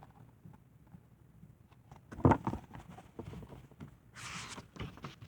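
Quiet handling of a picture book: a couple of sharp knocks a little over two seconds in, then a short papery rustle about four seconds in, as a page is turned.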